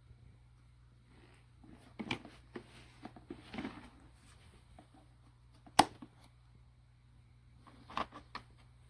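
A few scattered knocks and clicks over a low steady hum, the sharpest and loudest about six seconds in.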